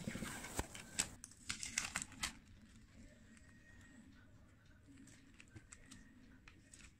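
Clear cellotape and paper crinkling and crackling as the tape is handled and pressed onto a paper cutout. The crackling is densest in the first two seconds and then thins to a few faint crackles.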